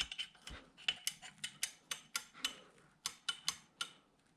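Rapid series of small, sharp metal clicks, about three a second, as an AR-15 magazine release is turned and tightened down into the lower receiver with a punch.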